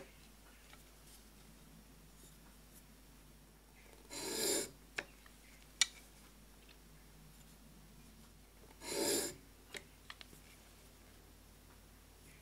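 Plane blade in a roller honing guide pushed across a waterstone in single strokes, each a short rasping scrape: two strokes, about four and nine seconds in, with a few light clicks between them. Each stroke grinds a little more of the curved (cambered) edge onto the blade's corner.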